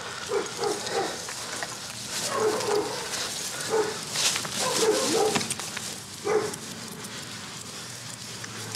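A dog barking repeatedly in short bursts, with rustling and a few sharp clicks as a man is handcuffed on the ground.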